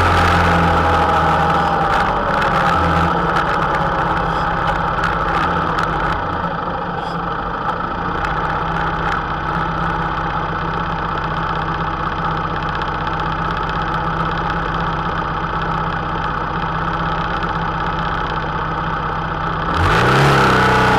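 Honda Interceptor 700 V4 motorcycle engine winding down with wind noise as the bike slows, then idling steadily for about fourteen seconds. Near the end it revs up as the bike pulls away.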